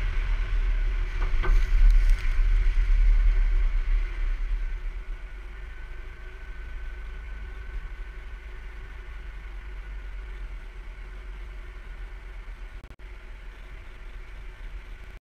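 Car driving on wet, slushy pavement: a steady low rumble of road and wind noise with tyre hiss. It is louder for the first few seconds and quieter from about five seconds in as the car slows.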